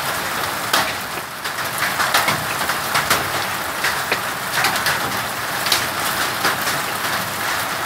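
Hail and rain pelting down hard: a steady hiss with many irregular, sharp hailstone hits, the hail growing bigger.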